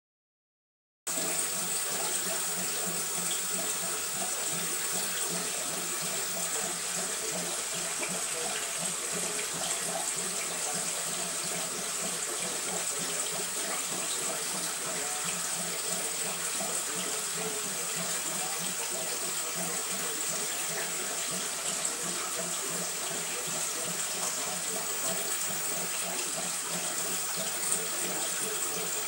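Steady running-water noise of an aquarium's water circulation, starting about a second in and holding level throughout.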